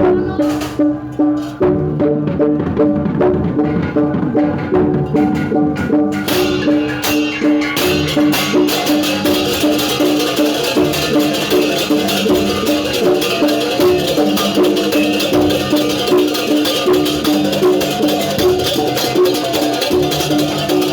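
Rhythmic percussion music with an even pulsing beat over a steady held tone; a bright, dense rattling layer joins about six seconds in.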